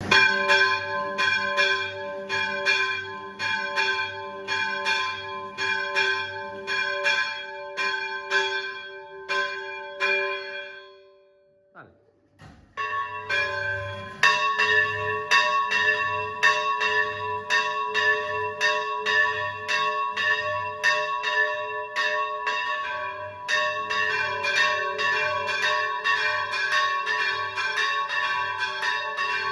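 Church bells in a belfry rung by their electric mechanisms, struck in an even rhythm of about two strokes a second. About ten seconds in the ringing stops and dies away. After a brief quiet it starts again with more bells sounding together.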